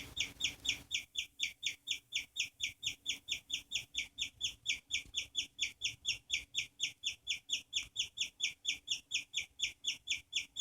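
An animal squealing in a fast, even series of short, high-pitched calls, close to five a second, kept up without a break.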